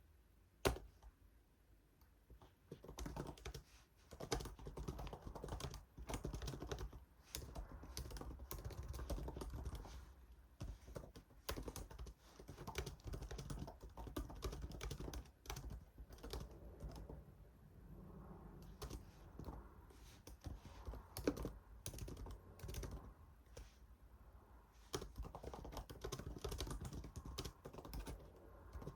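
Typing on a computer keyboard: irregular runs of key clicks with short pauses. A single sharper click comes just under a second in, before the typing starts.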